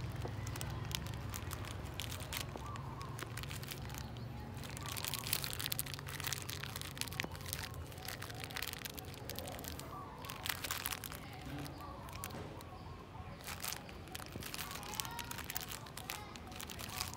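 A puppy chewing and pawing at a plastic wrapper, the packet crinkling in irregular bursts of sharp crackles, over a steady low hum.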